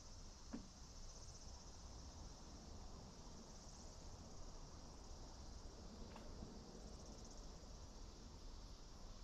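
Faint, steady, high-pitched chorus of insects.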